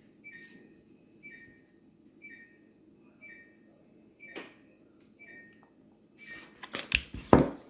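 Refrigerator door-open alarm beeping once a second, each beep a short falling two-tone chirp, over the low hum of the fridge. Near the end the beeping stops and there are loud handling noises: clicks, rustling and a knock.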